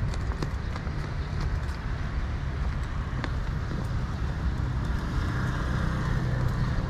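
Road traffic on the street alongside: a vehicle engine hum over a steady low rumble, growing stronger in the second half. A few footsteps click in the first half.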